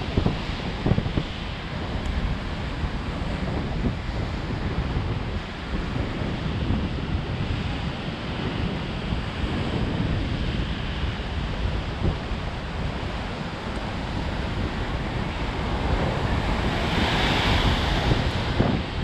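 Sea surf washing and breaking over rocks, with wind rumbling on the microphone; a wave surges louder, with more hiss, near the end.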